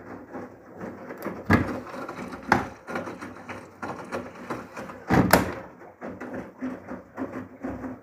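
Samsung WW80CGC04DAELE washing machine running mid-wash with a steady low hum. Over it come sharp plastic knocks from the detergent drawer being handled: one about a second and a half in, another a second later, and a longer clatter around five seconds in.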